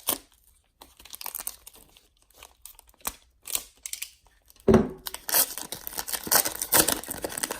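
Foil wrapper of a trading-card pack being handled and torn open: light scattered crinkles at first, then a thump a little past halfway and dense crinkling and tearing after it.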